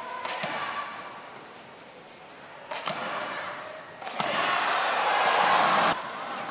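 Badminton rackets striking a shuttlecock, a few sharp hits spread across the rally, then a loud burst of crowd cheering in the arena that cuts off suddenly.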